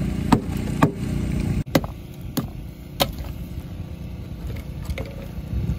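A metal bar knocking and chipping at tank ice, six or so sharp knocks spread over several seconds, to free a device frozen into the ice. An engine hums steadily underneath, louder for the first second and a half.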